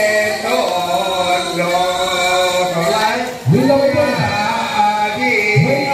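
A group of voices chanting in long held, overlapping tones, with two rising-and-falling vocal swoops, one about halfway through and one near the end.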